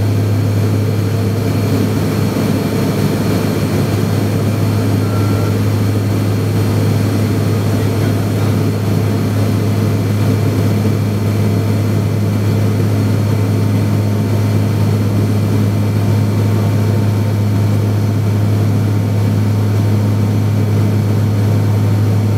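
Cabin drone of a Jetstream 31's Garrett TPE331 turboprop engines and propellers in cruise, heard from inside the cabin: a steady, unchanging drone with a strong low hum.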